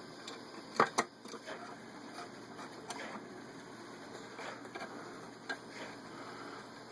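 Small clicks and taps of handling the metal top lid and its screws on a Singer 503 sewing machine, with two sharp clicks close together about a second in and a few fainter ticks later.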